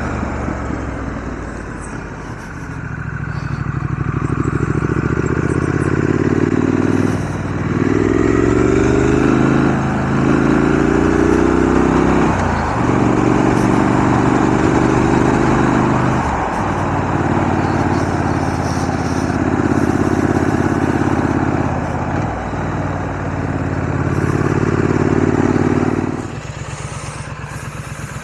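Triumph Scrambler 900's parallel-twin engine under way, its note rising and falling with throttle and gear changes, with a break in it every few seconds. About two seconds before the end it drops to a quieter, steady running note.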